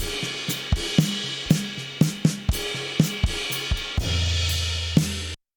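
Close-miked drum kit recording played back, a steady groove of kick, snare, hi-hat and cymbals without room ambience. A low sustained note rings near the end, then the playback cuts off suddenly.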